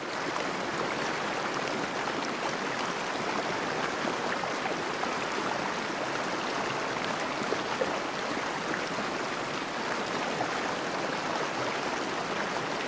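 Fast river water rushing and churning in turbulent white-capped waves past concrete piers: a steady, unbroken rushing noise.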